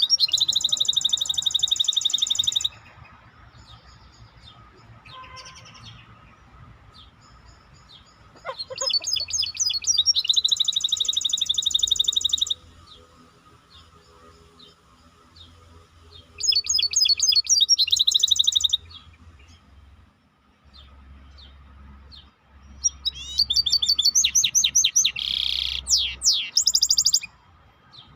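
A songbird, the 'Maestro' bird, singing four bursts of rapid, high trills, each a few seconds long, with short quiet gaps between.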